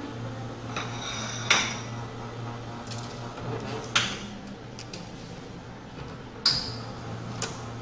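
Light clinks and knocks of small metal cans and counter items being picked up and set down while a barista tidies the counter, three sharper clinks standing out, over a steady low hum.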